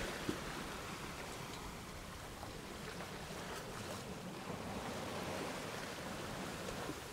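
Steady rushing noise of wind and water with a few faint knocks.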